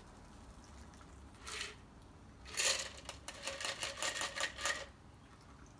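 Ice rattling inside a metal Boston shaker tin against the strainer as the last of a cocktail is shaken out through a fine sieve: a brief rattle, then a quick run of clicking rattles, about five a second, lasting about two seconds.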